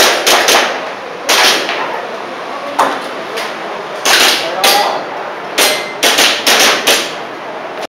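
Airsoft pistol fired in a practical-shooting string: about a dozen sharp shots at uneven spacing, several in quick pairs, the gaps matching a shooter moving between targets.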